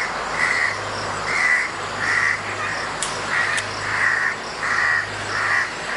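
An animal calling over and over, a short call roughly every three quarters of a second, over a steady low hum.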